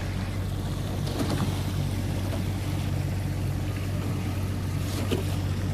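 Fishing boat's motor running steadily with a constant low hum, under water and wind noise.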